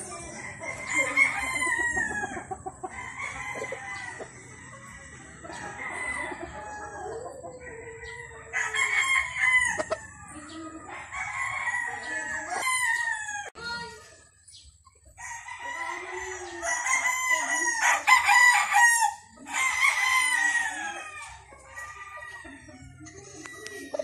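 Gamecock roosters crowing, one crow after another with short gaps between them.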